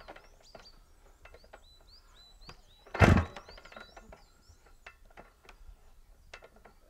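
The kickstart of a 1981 KTM 495 single-cylinder two-stroke kicked once about three seconds in: a short, loud burst as the engine is spun over and does not catch. It is the bike's first start after a full rebuild, with the fuel still being pumped up to the motor. Birds chirp faintly between kicks.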